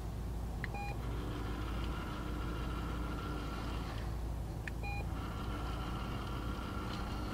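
Treat & Train remote treat dispenser beeping twice, about four seconds apart. Each short beep is followed by a few seconds of its motor whirring as it turns to dispense a treat into the tray.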